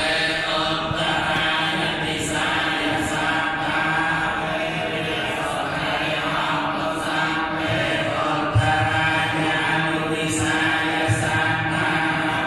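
Theravada Buddhist monks chanting together in a steady, unbroken chant, one of them chanting into a handheld microphone.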